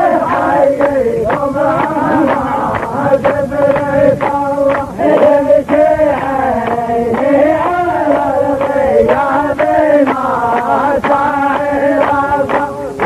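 Male chanting of a line of Nabati poetry, sung in a long, slowly wavering melody that goes on without a break, with frequent sharp beats under it.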